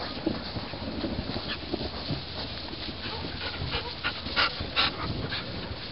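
Dogs and puppies at play, making a string of short sharp sounds, the two loudest close together about four and a half seconds in.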